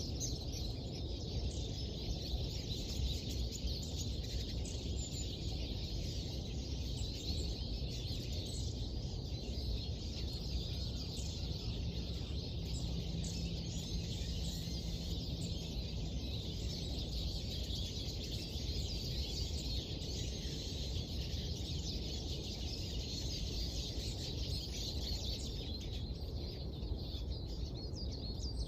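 Many small birds chirping and twittering at once in a continuous morning chorus, over a steady low background rumble.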